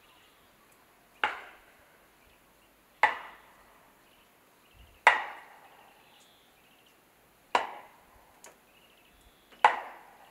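An axe chopping wood: five sharp strikes about two seconds apart, each followed by a short echo.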